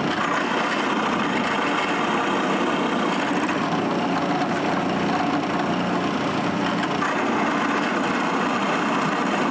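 Drill press running steadily, its router bit boring shallow holes for magnets in a hardwood strip.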